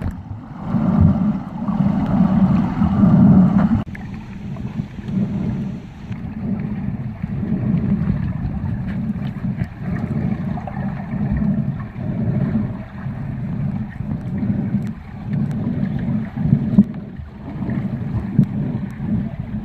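Muffled underwater noise from a submerged camera: a low, uneven rushing and sloshing of water stirred by swimmers moving close by, louder for the first few seconds.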